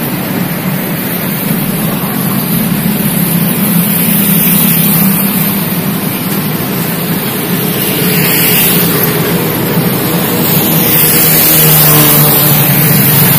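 Ride in a moving road vehicle: engine running steadily under loud rushing wind and road noise, getting a little louder near the end.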